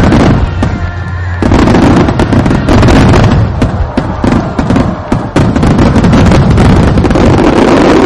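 Aerial fireworks bursting in a dense, rapid barrage of loud bangs and crackles, many reports a second.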